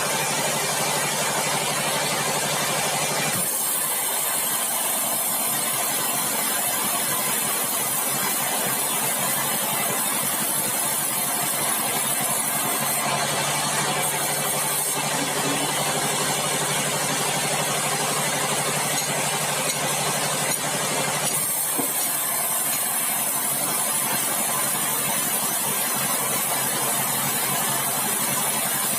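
Sawmill bandsaw running steadily, with a machine hum under it. The higher part of the sound changes about three seconds in and again about twenty-one seconds in.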